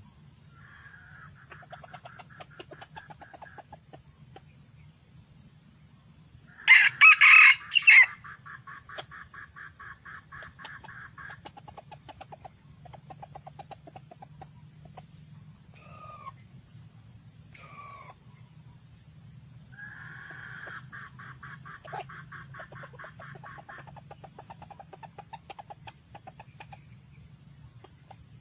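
Red junglefowl crowing once, short and loud, about seven seconds in, with repeated rapid, pulsing clucking calls before and after. A steady high-pitched buzz runs underneath throughout.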